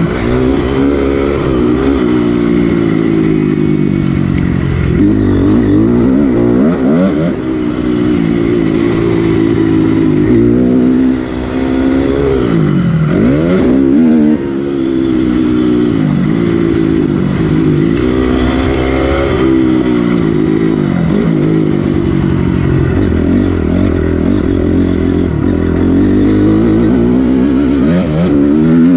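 Motocross bike engine heard close from on board, its note rising and falling over and over as the rider accelerates and shifts through the gears. The throttle is briefly chopped about eleven and again about fourteen seconds in.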